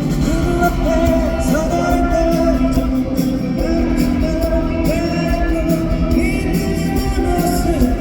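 Live rock band playing a song with a lead vocalist singing the melody over guitars, bass and drums, heard in a large hall.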